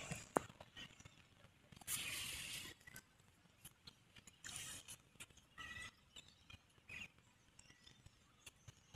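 Quiet outdoor ambience: a sharp click just after the start, then scattered short faint hissy noises and a couple of brief high tones.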